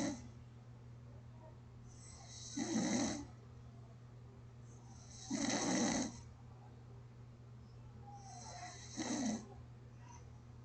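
A sleeping person's gentle snoring: one snore about every three seconds, over a steady low hum.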